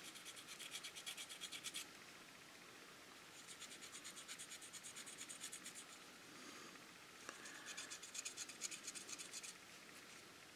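A cotton swab rubbed quickly back and forth over the painted styrene body of a scale model car, scrubbing black paint overspray off the clear-coated finish. The quick scratchy strokes come in three spells with short pauses between them, and the sound is faint.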